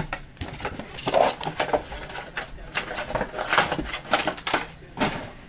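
Packaging handling noise: a sharp knock at the start as the stack of foil card packs is set down, then irregular rustling and light taps of wrappers and cardboard.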